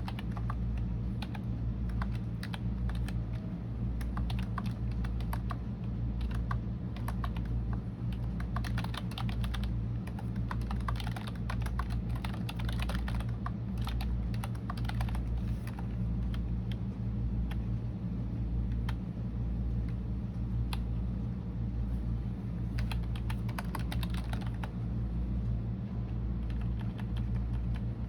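Typing on a computer keyboard: quick runs of key clicks, busiest about a third of the way in and again near the end, with sparse pauses between. A steady low hum runs underneath.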